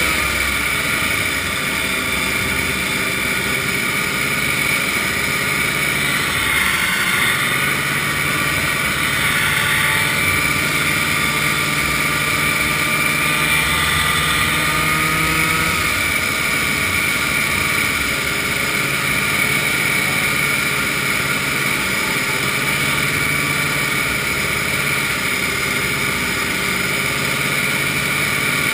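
Vintage snowmobile engine running steadily at road speed on pavement. Its note steps up and down slightly and sits under a constant rush of wind and road noise.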